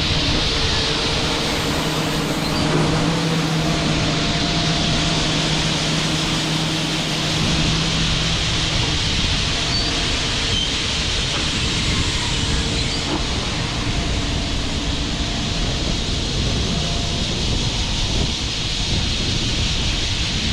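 Harvest machinery running under a constant loud rushing noise; a steady engine hum with several tones fades out about eight seconds in.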